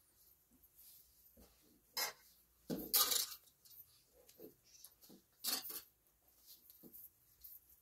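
Metal bowls and dishes clinking and clattering as dough balls are handled on them, in a few short bursts with the loudest and longest about three seconds in.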